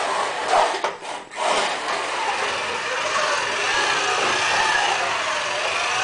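1:32 scale slot cars' small electric motors whining as they run around a plastic slot track, the pitch rising and falling with speed. The sound dips briefly about a second in.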